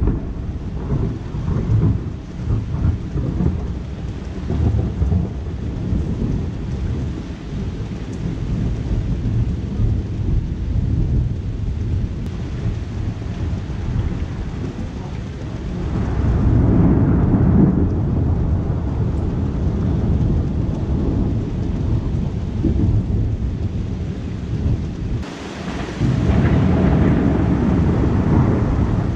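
Thunderstorm: rain falling steadily under long, low rolls of thunder. The rumble swells about halfway through and comes back louder, suddenly, near the end.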